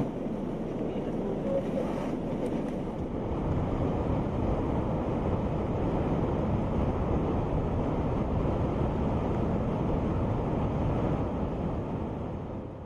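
Wind buffeting the microphone over waves breaking on the shore: a steady low rumbling noise that fades out near the end.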